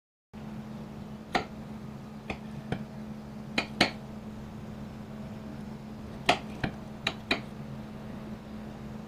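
Steel kitchen knife cutting a baked key lime pie, its blade clinking against the ceramic plate in about nine sharp, separate clicks, over a steady low hum.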